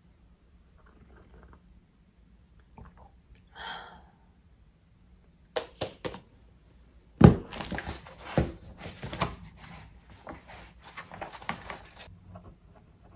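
Notebooks handled on a wooden desk: a few light clicks, then a hardcover notebook set down with a thunk about seven seconds in, followed by several seconds of paper rustling and pages being turned.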